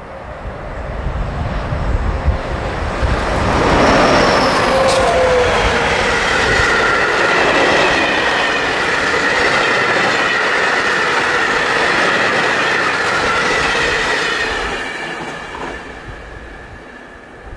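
Freight train of covered hopper wagons, hauled by electric locomotives, passing at speed: the rumble of the wheels swells as it approaches, stays loud while the wagons roll by and fades as the last wagon goes. A falling tone sounds as the locomotives pass about five seconds in, and a steady high-pitched wheel squeal rings through the middle of the pass.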